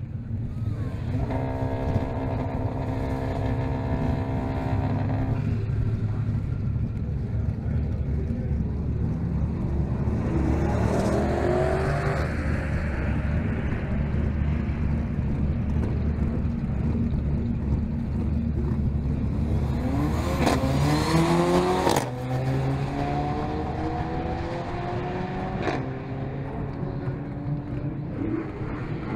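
Mercedes-AMG CLA 45's 2.0-litre turbocharged four-cylinder engine held at steady revs for a few seconds, then accelerating hard through the gears. Its pitch climbs and drops suddenly at each upshift.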